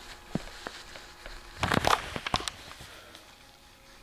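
Handling noise from a camera being moved and covered: rustling and crackling with a few sharp clicks and knocks, loudest in a burst of rustling a little before the middle.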